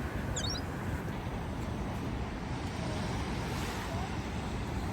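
Ocean surf washing in, with wind rumbling on the microphone. A few quick high chirps sound about half a second in.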